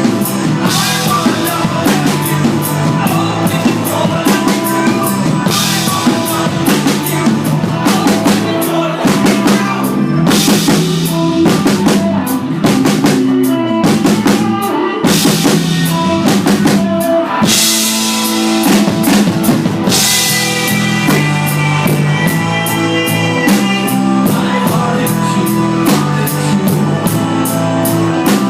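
Live rock band playing, led by a busy drum kit with bass-drum and snare hits and repeated cymbal crashes over sustained low instrument notes. It is loud and rough, as captured by an iPod Touch's built-in microphone.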